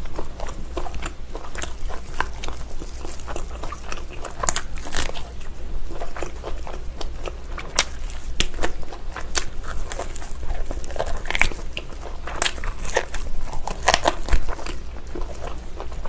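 Close-miked chewing of braised pig's trotter (jokbal), with many short, sharp wet mouth clicks and smacks as the meat and skin are bitten and chewed.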